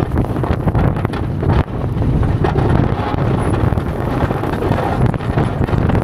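Plow truck driving through snow, its engine running under a heavy rumble of wind on the microphone.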